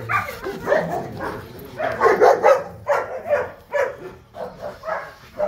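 Rottweilers barking repeatedly, about two to three barks a second.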